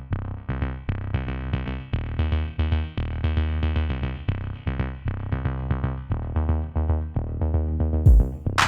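Electronic background music with a drum-machine beat, synthesizer notes and a heavy bass line. A loud hit lands near the end as the track moves into a busier section.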